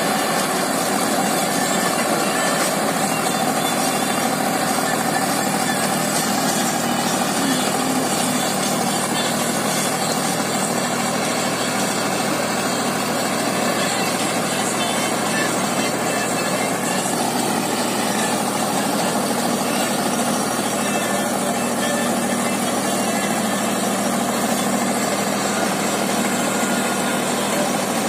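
Deutz-Fahr Agrolux 75 tractor's diesel engine running steadily under load while driving a rotavator that churns through the soil.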